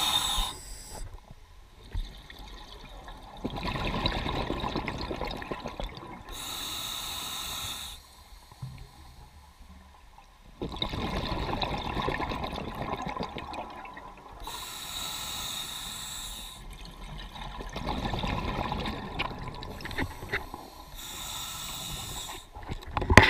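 Scuba diver breathing underwater through a regulator in slow, regular breaths. Each breath is a short hissing inhale followed by a longer rumble of exhaled bubbles, about three breaths in all.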